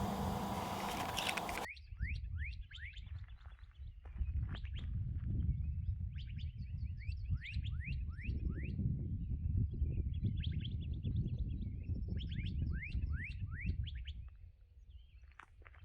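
Wild birds chirping in quick series of short rising notes over a low rumble. A loud rushing noise at the start cuts off abruptly about a second and a half in.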